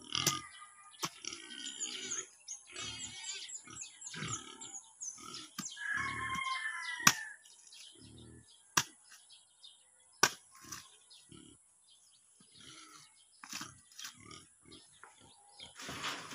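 Bolo knife chopping and scraping into loose soil, mounding earth around the base of a newly planted orange seedling: a run of irregular knocks and thuds.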